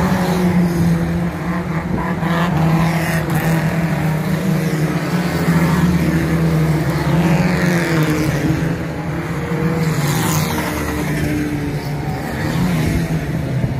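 Several banger racing cars' engines revving hard as they race past, the engine pitch rising and falling as they drive through the bend.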